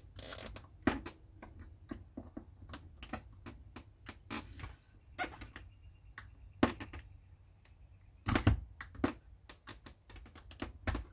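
Irregular plastic clicks and snaps from a Ford F350 Super Duty fuse box housing being separated and lifted apart, its clips letting go, with a louder clatter about two-thirds of the way through and again near the end.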